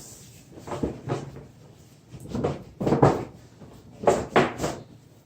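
Cardboard and plastic packaging of a boxed liquid CPU cooler being pulled and scraped by hand, a series of short rustling scrapes and knocks, bunched more thickly in the second half.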